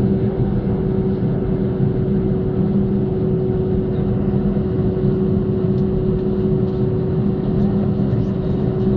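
Boeing 737's CFM56 jet engines heard from inside the cabin as the airliner taxis: a steady engine rumble with a constant hum.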